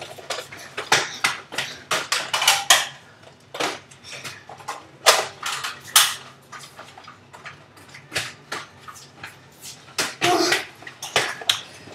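Nerf blasters firing: an irregular run of sharp clacks and knocks, with a brief shout about ten seconds in.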